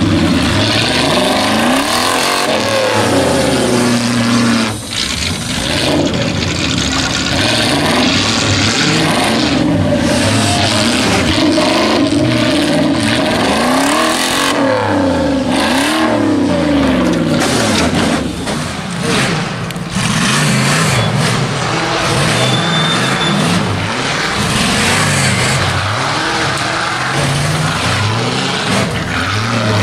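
Off-road race buggies' engines revving hard, pitch repeatedly rising and falling as they claw up a rutted dirt-and-snow mound; more than one engine is heard at once.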